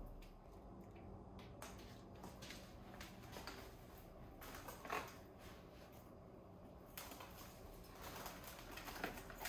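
Faint rustling and crinkling of plastic cling wrap being pulled from its box and stretched over a bowl, with scattered small crackles and a slightly louder one about five seconds in.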